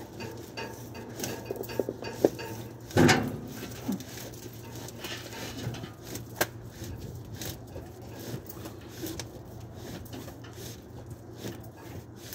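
Scattered knocks and clatter of cardboard cargo boxes being shifted and stacked in a truck's cargo bay, with one louder thump about three seconds in, over a steady low hum.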